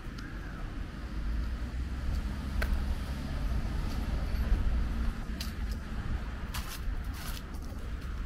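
A motor vehicle's engine running with a low, steady rumble, with a few sharp knocks or clanks scattered through it.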